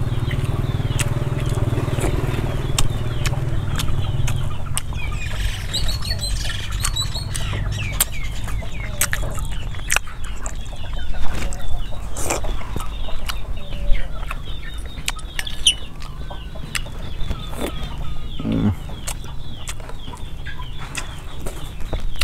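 Close eating sounds: chewing and slurping frog soup, with a metal spoon clicking on a plastic plate, over chickens clucking in the background.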